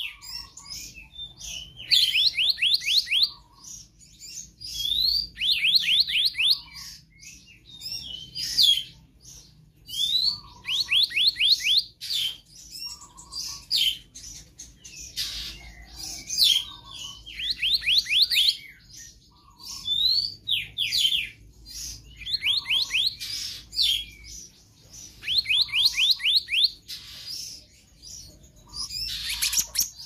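Black-naped monarch singing: phrases repeating every two to three seconds, each a rising note followed by a quick run of five to seven high, ringing notes.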